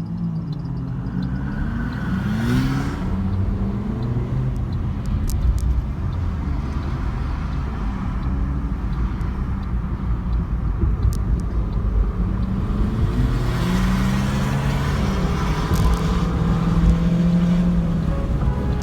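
BMW F30 3 Series engine and exhaust under acceleration, the engine note rising and falling as it revs, over a steady low rumble. The revving comes near the start and again for several seconds toward the end.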